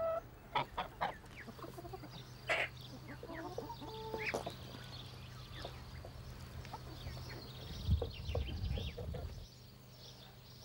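Hens clucking with scattered short calls, and pecking at a pan of cracked corn, with a run of beak strikes on the grain about eight seconds in.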